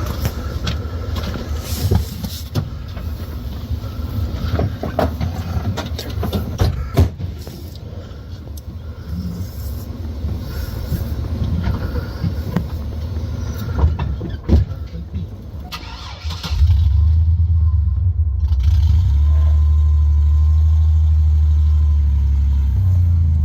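Car engine running close by, a low rumble with scattered sharp knocks. About sixteen seconds in, a much louder, steady low engine rumble sets in and holds.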